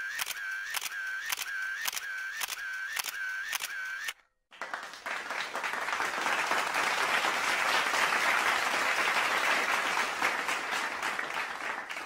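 Camera shutter sound effect: a run of shutter clicks, about two a second, each with a short tone, stopping about four seconds in. Then a crowd applauding, swelling and thinning out near the end.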